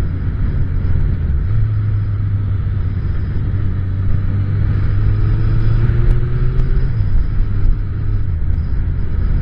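Suzuki Bandit 1200's inline-four engine running as the motorcycle rides along, under a heavy low rumble of wind on the microphone. The engine note rises gently from about a second and a half in, then drops back twice near the end as the throttle is eased.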